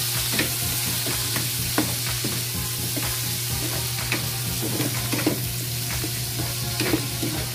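Sliced onions, tomatoes and green chilies sautéing in hot oil in a small pan, sizzling steadily while a spatula stirs them, scraping and clicking against the pan now and then.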